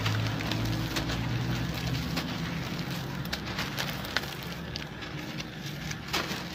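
Dry sand-cement chunks crumbling in the hands, the gritty powder and grains spilling onto a heap in a pan: a steady crackly sifting with many small ticks. It eases off slightly toward the end.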